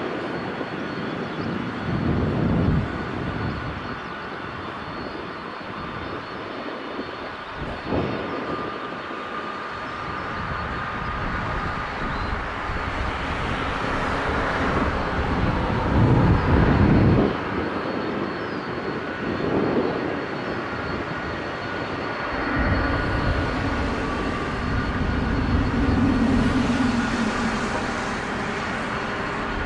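Engines of an Airbus A380-800 airliner running on departure: a continuous jet noise with louder low rumbling swells several times.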